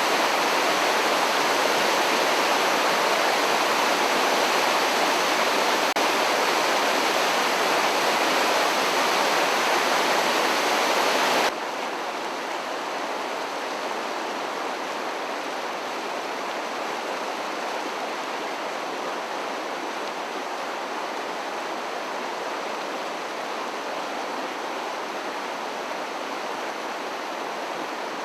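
Floodwater rushing in a steady, even noise. About eleven seconds in it drops abruptly to a quieter, duller rush.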